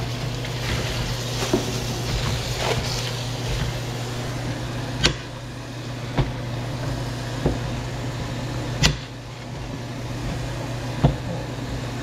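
Kitchen prep sounds over a steady low hum: about five short, sharp knocks and taps as eggplants, a knife and a plate are handled on the counter.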